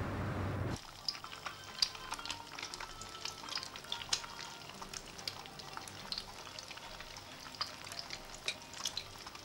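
Food sizzling in a frying pan, with irregular small pops and crackles over a faint steady hiss. Under a second in, a car's low interior rumble cuts off abruptly just before the sizzling takes over.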